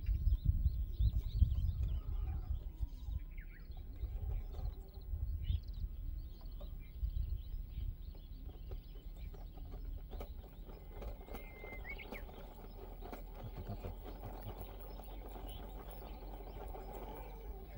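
Outdoor ambience: birds chirping now and then over a low, gusty rumble that eases after about four seconds.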